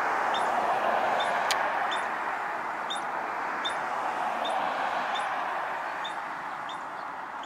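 California ground squirrel giving an alarm call: short, high, evenly spaced chirps, a little over one a second, like a low battery alarm. A steady rushing noise underlies it and is louder than the chirps.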